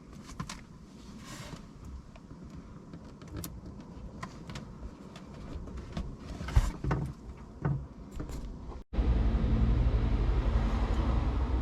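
Scattered clicks and small knocks of a cable and plastic trim being handled. After a brief dropout, a steady low hum starts and runs louder than the clicks.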